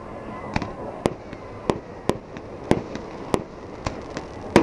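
Fireworks display: about a dozen sharp bangs of bursting fireworks at irregular intervals over a steady rushing background, the loudest just before the end.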